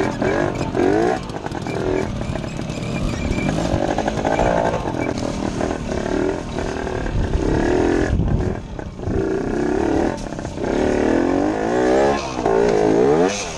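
Trials motorcycle engine, heard close up from the bike, revving up and down again and again, the revs rising and falling every second or so as the bike is picked slowly over rough ground and logs.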